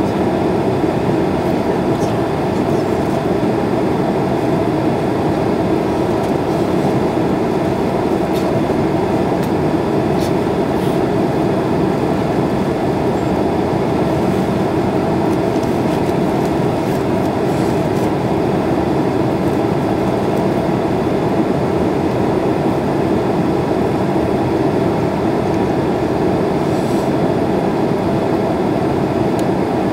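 Steady cabin noise inside an airliner in flight: the jet engines and the rush of air past the fuselage, an even hum that holds level throughout the descent.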